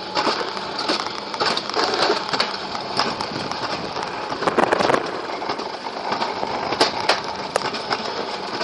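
Alpine coaster sled running fast down its tubular steel rails, its wheels rattling and clattering on the track with many sharp clicks and knocks, loudest about halfway through.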